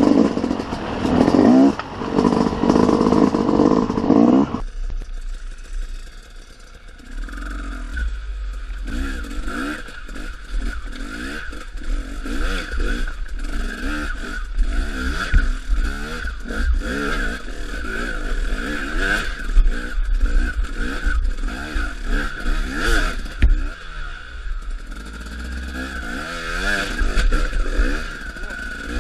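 250 cc two-stroke enduro dirt bike being ridden off-road, its engine revving up and down again and again, with knocks and clatter along the way. About five seconds in, the sound changes abruptly to a closer engine note over a low rumble and a steady high tone.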